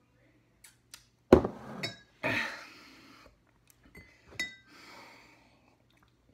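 Drinking glasses clinking as they are set down and handled: a sharp clink with brief ringing about a second in, another ringing clink a few seconds later, with smaller knocks and short rushes of noise between them.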